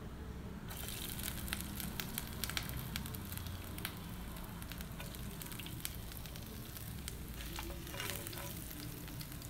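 Hot oil tempering with mustard seeds and lentils, sizzling and crackling with sharp little pops; it grows louder about a second in as chopped ginger is dropped into the oil. Near the end a spatula stirs the pan.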